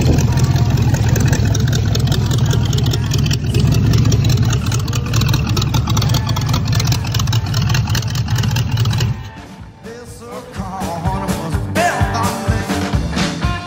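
Rat-rod pickup's hot rod engine running steadily through short open exhaust pipes. About nine seconds in the engine sound cuts off and rockabilly band music begins.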